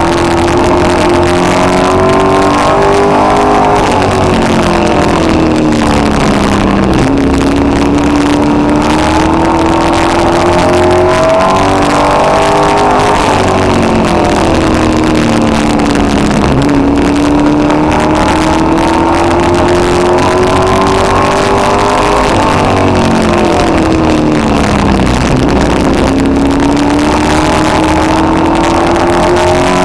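Street stock race car engine at full racing load, heard from inside the car. Its pitch climbs along each straightaway and drops as the driver lifts into the turns, repeating about three times.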